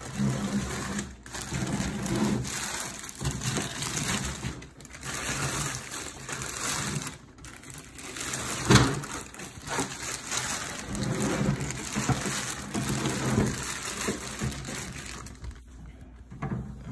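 Clear plastic bag around a new food dehydrator crinkling and rustling as it is handled and pulled off, in uneven swells of scrunching, with one louder crackle about nine seconds in.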